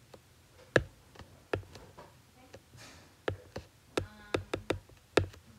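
Plastic stylus tip tapping and clicking on an iPad's glass screen during handwriting: irregular sharp ticks, coming more often in the second half.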